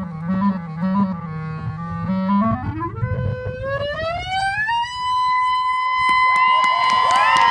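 Marching band music: a stepping woodwind melody over a low held note, then about two and a half seconds in a long rising glide that settles on a steady high note. Near the end, a flurry of sharp percussion strikes and bending tones comes in over it.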